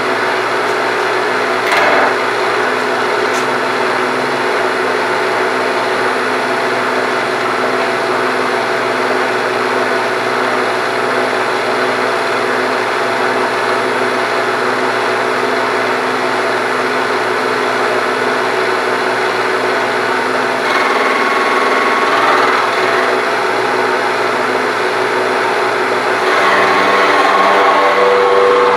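Milling machine running, its cutter taking a skim cut across a cast-iron lathe casting: a steady motor and cutting hum. There is a brief knock about two seconds in, and a higher whine from the cut joins in twice in the second half.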